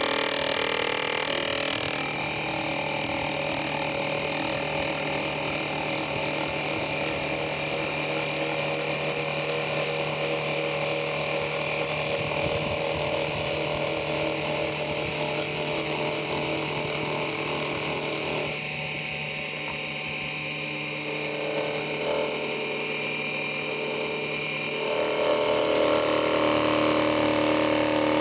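Mini metal lathe running with a steady motor hum and whine while the tool cuts along a spinning piece of wood. The sound dips a little about two-thirds of the way through and grows louder near the end.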